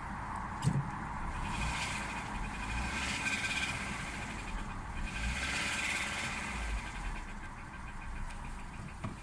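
Renault Mégane 1.4 TCe turbocharged four-cylinder petrol engine idling with a steady knock from the bottom end, diagnosed as worn big-end bearings. A single sharp click comes a little under a second in.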